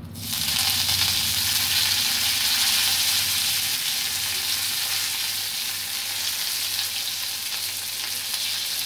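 Fresh curry leaves hitting hot mustard oil with mustard seeds and dried red chilli: a loud sizzle with crackling that starts suddenly and eases slightly over the following seconds.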